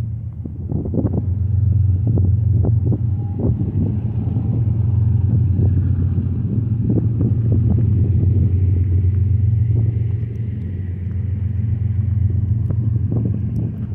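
Steady low rumble of an approaching BNSF freight train's diesel locomotives, with irregular buffeting of wind on the microphone.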